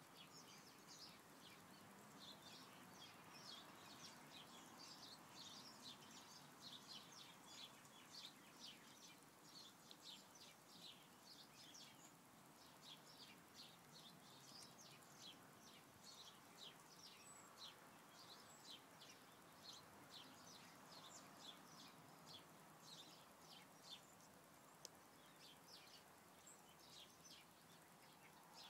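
Faint birdsong: many short, high chirps in quick irregular runs over a quiet outdoor hiss.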